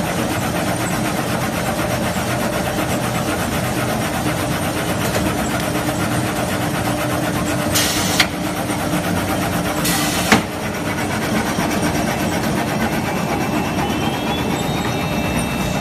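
Clutch facing weaving machine running steadily, with a fast mechanical clatter over a steady low hum. Two short hisses, each ending in a sharp click, come about two seconds apart midway through.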